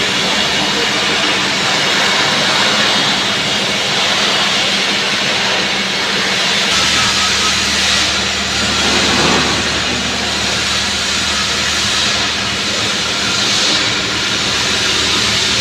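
TIG welding arc burning with a steady hiss and buzz. A lower hum joins about seven seconds in.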